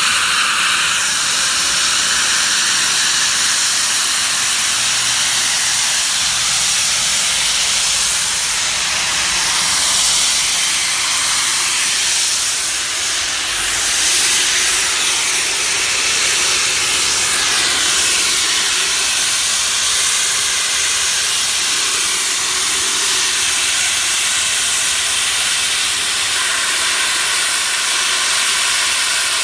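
Narrow-gauge coal-fired steam locomotive venting steam from the top of its boiler: a loud, steady hiss.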